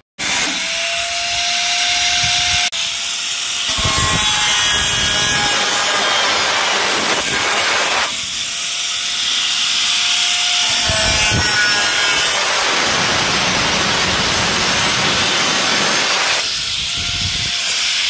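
Electric angle grinder with a cutting disc slicing through the thin sheet metal of a tinplate oil can: a harsh, continuous hissing screech over the motor, with the steady whine of the disc spinning free heard at a few points between stretches of cutting.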